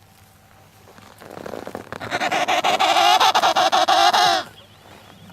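An animal's long, loud honking call: one buzzy, pitched call that builds about a second in and cuts off sharply after about three seconds.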